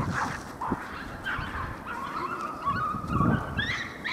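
Shouted calls from voices, one drawn out and wavering for about two seconds in the middle, with rising calls near the end.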